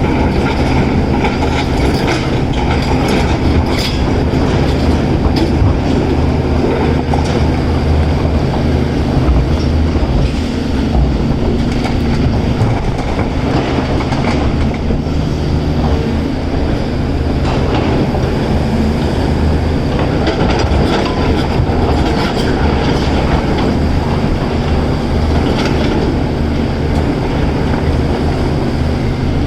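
Heavy diesel earthmoving machinery running steadily under load, with rattling and clanking and a few sharp knocks in the first few seconds.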